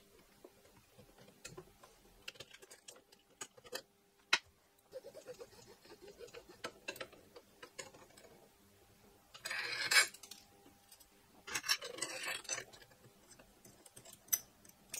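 Light clicks and clinks of small metal parts being handled while a 3D printer's aluminium frame parts, bolts and mounting plates are fitted by hand, with two louder stretches of handling noise about ten and twelve seconds in.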